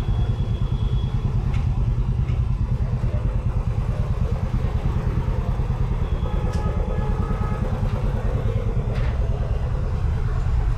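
Street traffic: motorcycle and other vehicle engines running close by, a steady low rumble with a few faint clicks and short higher tones over it.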